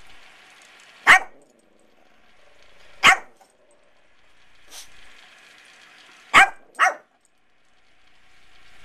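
Yorkshire terrier barking in short, sharp yaps: four loud barks about two to three seconds apart, the last two in quick succession, with a fainter one between.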